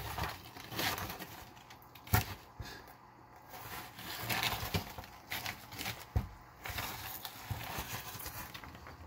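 Black-throated monitor lizard swallowing a whole bone-in chicken leg: faint scattered clicks, crackles and scrapes as it gulps and shifts on the plastic, with one sharp click about two seconds in.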